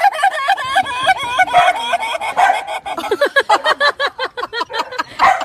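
A chicken clucking in a quick run of short, pitched calls, about five or six a second, that turn lower and faster after about three seconds.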